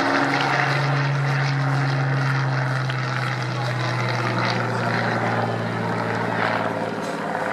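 Propeller-driven piston-engined aircraft flying past, a steady engine drone that slowly falls in pitch.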